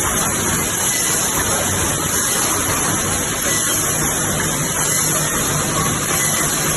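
Wire mesh welding and bending production line running: a steady machine noise with a constant high hiss.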